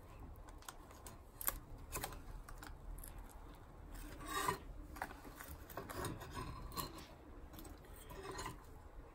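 Serrated knife sawing through a soft sponge cake: faint, irregular rasping strokes with a few light clicks of the blade, then the cut slice being handled.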